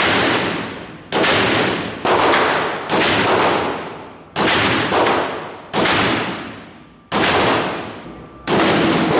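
Gunshots fired one after another, about ten in nine seconds at an uneven pace of roughly one a second. Each report rings out and dies away in a long echo before the next.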